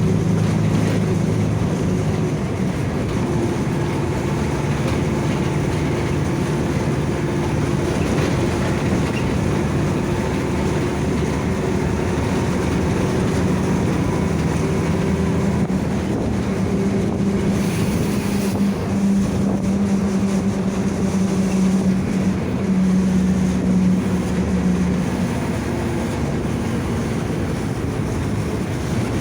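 Mercedes-Benz OF-1722M bus under way, its engine running and its differential howling with a steady low drone. The howl strengthens around the middle and dies away a few seconds before the end.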